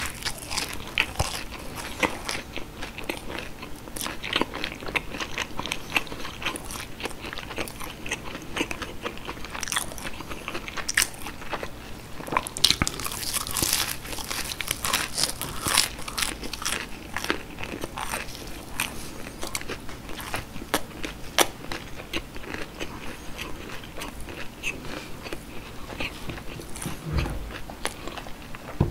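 Close-miked biting and chewing of breaded, deep-fried cheese sticks: the crisp crumb crust crunches in many short crackles, bite after bite.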